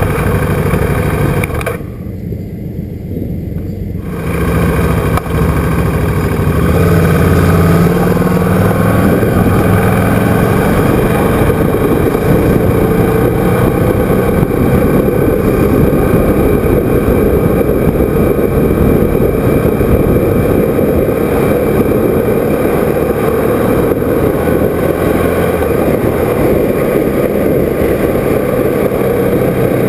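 KTM motorcycle engine pulling away and accelerating, briefly quieter about two seconds in, then running steadily at road speed with wind rushing over the microphone.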